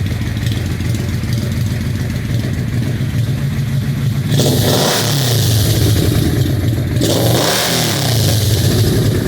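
Yamaha Royal Star Venture 1300's V4 engine through Full Bore slip-on exhausts. It idles steadily, then is revved twice, the first rev about four seconds in. The owner says the popping and pinging are gone with the new slip-ons.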